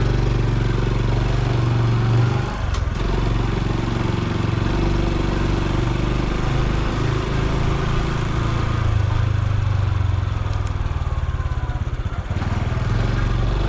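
Honda Super Cub C125's single-cylinder four-stroke engine and exhaust running as the bike rides, the engine note rising and falling with the throttle.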